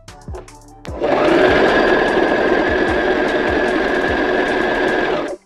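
Brother LS14s domestic sewing machine sewing an overlock stitch: the needle runs fast and evenly with a steady high whine from the motor, starting about a second in and stopping abruptly about four seconds later.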